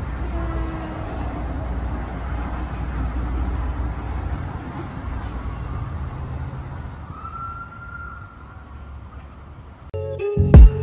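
Street traffic noise: a steady low rumble of cars on the road. Near the end it cuts to music with a strong beat.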